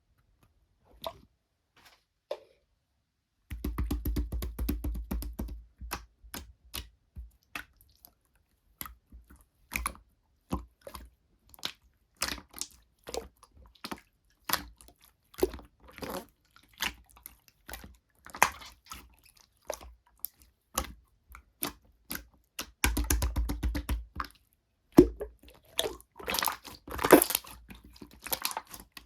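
Slime being squished and pressed by hand, giving off many small crackles, pops and clicks. These come in dense runs a few seconds in and again near the end.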